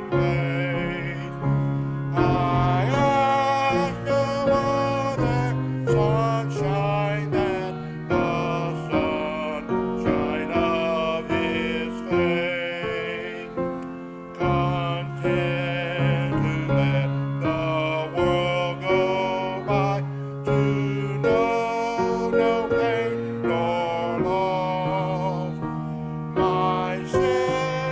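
Hymn music: piano accompaniment with voices singing.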